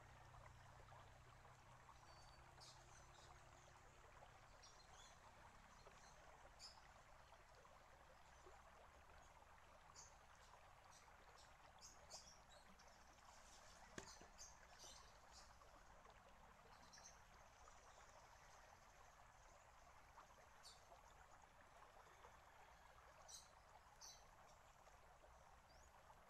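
Faint steady trickle and bubbling of water from garden water features, with one sharp knock about halfway through, the bamboo shishi-odoshi tipping back and striking its rock after emptying. Short high bird chirps come and go.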